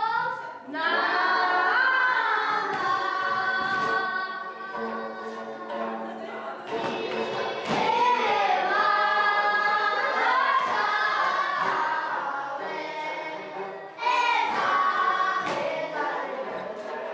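A song sung by a group of voices, in long held melodic lines with short pauses between phrases.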